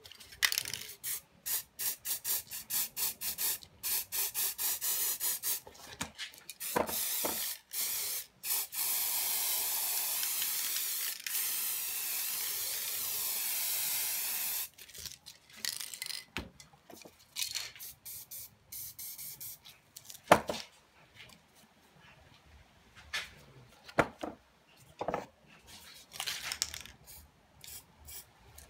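Aerosol spray paint can hissing: first a fast run of short spray bursts, about four a second, then one steady spray lasting about six seconds. After that come scattered clicks and knocks, the loudest about two-thirds of the way through.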